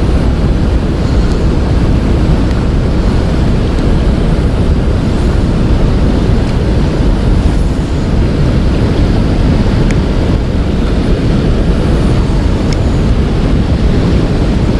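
Steady, loud rushing noise of wind on the microphone and fast-flowing river water, with a couple of faint ticks late on.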